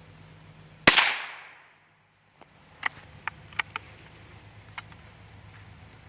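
A single shot from a Keystone Cricket .22 rifle about a second in, its report dying away over most of a second. A few light, sharp clicks follow between about three and five seconds in.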